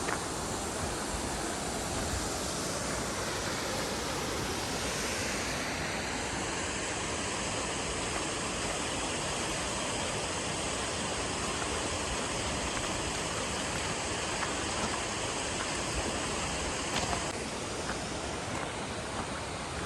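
Steady rushing noise, like running water, spread evenly from low to high pitches. Its tone shifts slightly about six seconds in and again near the end.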